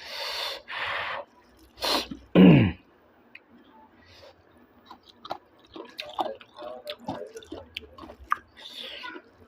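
A person eating with mouth close to the microphone: two loud breathy slurps at the start, a short loud vocal sound falling in pitch about two and a half seconds in, then quieter chewing with many small wet smacks and clicks.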